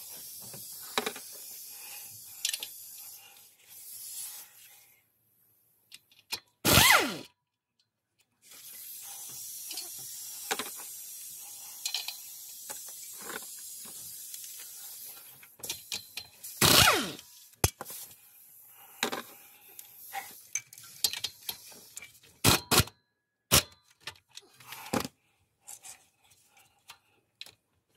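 A power tool works on the clutch pressure plate bolts, in two stretches of steady whirring. Two loud short bursts come about seven and seventeen seconds in, followed by a string of sharp metallic clicks and knocks from hand tools and parts.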